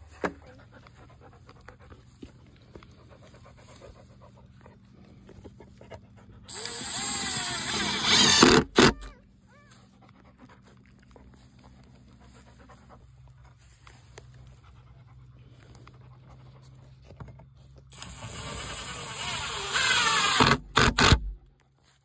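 Cordless drill driving screws through metal corner brackets into cedar boards. There are two whining runs of about two seconds each, one about six seconds in and one about eighteen seconds in, and each ends in a few sharp clicks.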